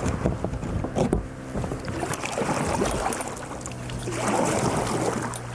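Water sloshing and splashing against a small boat, over a steady low hum, with a few light knocks.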